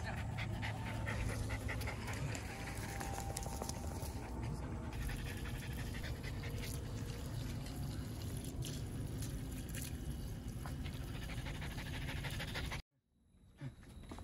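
Shiba Inu panting hard and fast, about five breaths a second: the dog is worn out from running and exercise.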